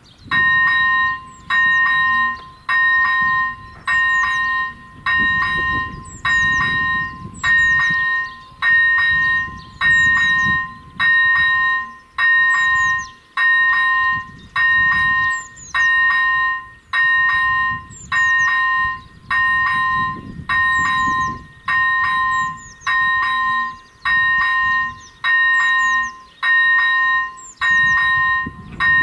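AŽD ZV-01 electronic level-crossing bell ringing in steady, evenly spaced strokes, starting right at the beginning: the crossing warning has switched on for an approaching train.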